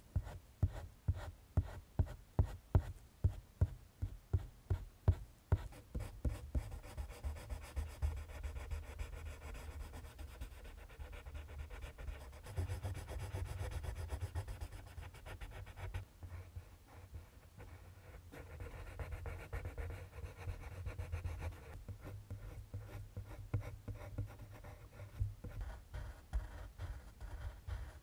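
Colored pencil scratching on drawing paper while shading. For the first six seconds or so it makes short regular strokes, about two or three a second. After that the strokes come denser and faster, almost continuous.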